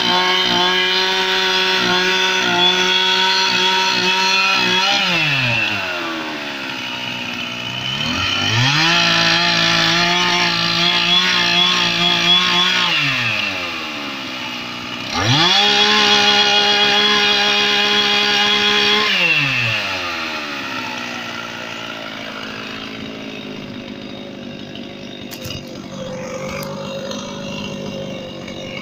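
Petrol chainsaw cutting into a pine log, its engine run at full throttle in three long bursts of about four to five seconds each, dropping back to idle between them. After the third burst it falls back to idle and keeps running quietly.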